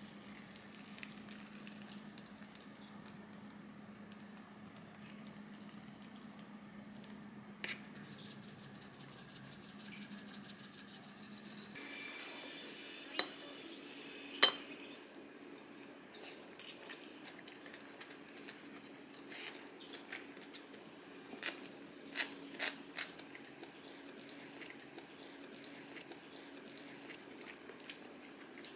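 Chopsticks and a spoon clicking and scraping against a ceramic pot while eating, in a series of sharp light clicks. Before that, a low steady hum with a fast even crackle for a few seconds.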